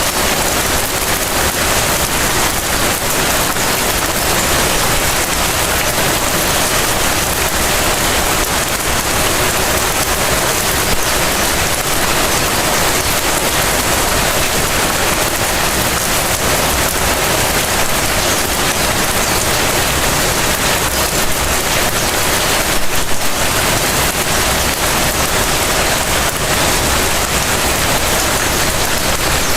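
Steady rain falling and pattering on surfaces, with a brief louder patch about 23 seconds in.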